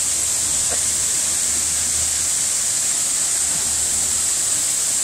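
Steady rush of a nearby waterfall: an even, hissing roar that holds at one level throughout.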